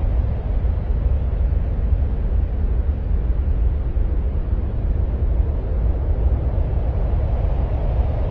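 Steady, deep noise with its weight in the bass and little treble, even throughout with no separate events: an ambient noise track billed as the sound of Mars.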